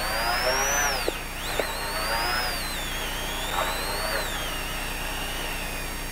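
Hyundai i20 WRC rally car's turbocharged four-cylinder engine heard from inside the cabin, revving high and rising in pitch, dropping sharply at a gear change about a second in with two sharp cracks. It then climbs again under acceleration, then falls away gradually over the last two seconds as the driver comes off the throttle.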